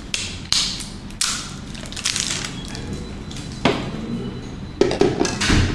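Hands handling large batteries and the black plastic base of a rotating display stand: scattered taps, knocks and rustling, with a cluster of knocks and a low thud near the end.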